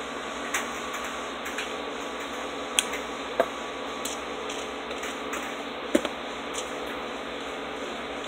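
Scattered light clicks and taps, a few sharper than the rest, as hands work over an RC10GT truck's chassis before its engine is started, against a steady background hum. The engine is not yet running.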